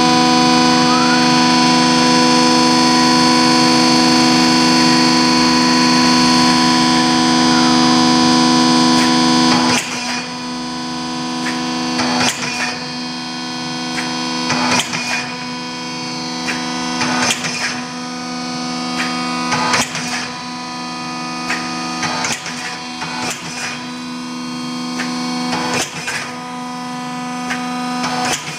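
Hydraulic tube-slotting press running, its hydraulic power unit giving a steady loud hum. From about ten seconds in, the press starts cycling automatically, punching rectangular slots in a steel profile tube with a sharp clunk about every two and a half seconds as the tube is fed forward between strokes.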